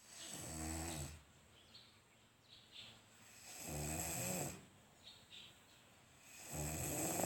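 Child snoring: three snores about three seconds apart, each lasting about a second, with faint short high squeaks in the pauses between them.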